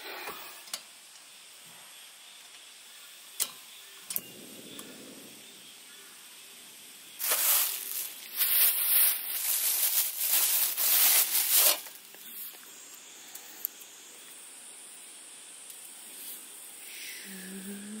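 Plastic bag of dry spaghetti crinkling and rustling as it is handled, loud and irregular for several seconds midway. A few light knocks come before it, over a faint steady hiss from the small camping gas stove heating a pot of water.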